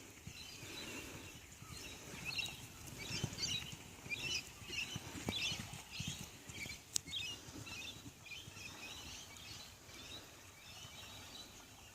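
Birds chirping and twittering in irregular bursts, with soft low thuds and rustling underneath and one sharp click about seven seconds in.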